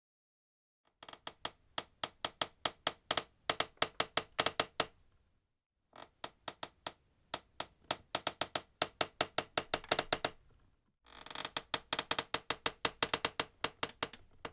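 A chair back creaking under pressure from a knee while the seat is held, standing in for a slow door creaking open. Three long creaks follow one another, each a run of rapid ticks that come quicker and closer together as it goes.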